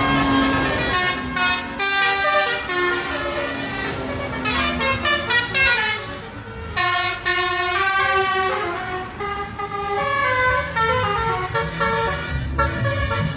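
Indonesian bus telolet (basuri) horns playing quick multi-note melodies, several tunes overlapping, over the low rumble of the buses' engines. There is a brief lull about six seconds in.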